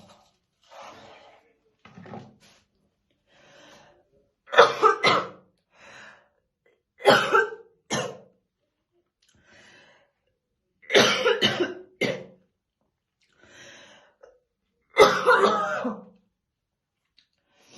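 A woman coughing hard in heavy, deep, chesty fits, described as a smoker's morning cough. There are four loud bouts of two or three coughs each, with quieter breaths and throat-clearing between them.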